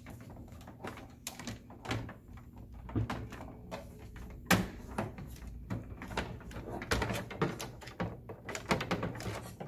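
Hard plastic toy castle pieces being handled and pressed together, pegs pushed into holes. The result is a string of knocks and clicks, the sharpest about four and a half seconds in.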